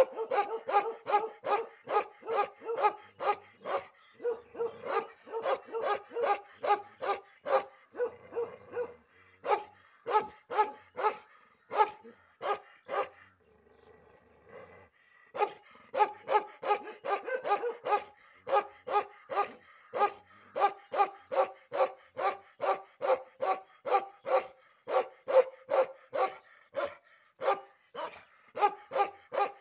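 Bakharwal dog barking aggressively, a fast steady run of about two to three barks a second. The barking breaks off briefly twice, the longer pause of about two seconds near the middle, then resumes at the same pace.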